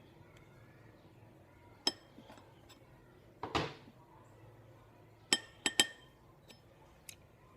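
Hard utensils and containers clinking against each other while slime is mixed: one clink about two seconds in, a short scrape in the middle, then three quick clinks and a faint one near the end.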